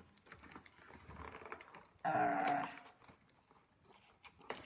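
Light rustling and clicking of a cardboard Kinder advent calendar being handled and its doors pressed open, with a brief pitched vocal sound about two seconds in, the loudest thing here, and a sharp click near the end.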